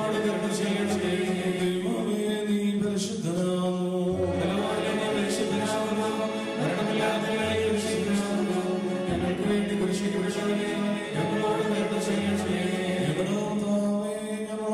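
A group of voices chanting an Orthodox Syrian liturgical hymn in unison, a slow melody of long held notes.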